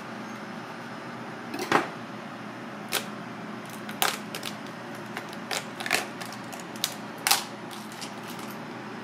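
Cooked mud crab shell cracking and snapping as it is pried apart by hand: a run of irregular sharp cracks, about ten in all, loudest near the start and near the end, over steady background noise.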